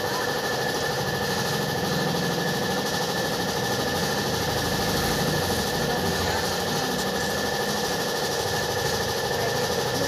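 An engine running steadily at idle, an even hum with a constant whine.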